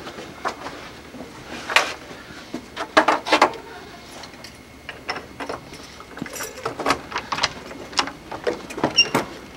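An irregular string of sharp clicks and knocks as a door is unlocked with keys, its handle worked and the door opened. The loudest knocks come about two and three seconds in, and another cluster comes near the end.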